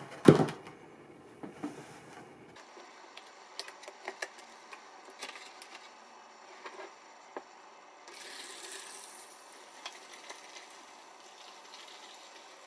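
A rusty iron horseshoe is set down in a cut-down plastic jug with two sharp knocks, followed by faint scattered handling clicks. Later a faint hiss of Evapo-Rust rust-remover liquid being poured over it.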